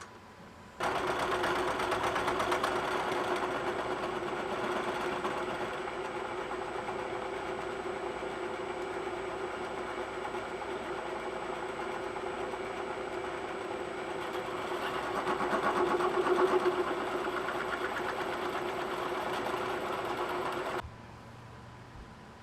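Electric metalworking machine running steadily under load, working small steel parts. It starts abruptly about a second in, grows louder briefly a little past the middle, and cuts off sharply near the end.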